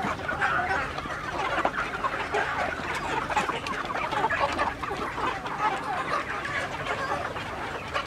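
A large flock of native village chickens clucking all at once, a dense overlapping chatter of short calls that runs on without a break, as the birds crowd round feed troughs at feeding.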